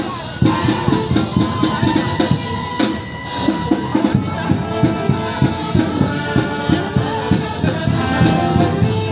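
Marching band playing in the street: drums and rattling percussion keep a steady beat of about two strikes a second, with a melody held over it.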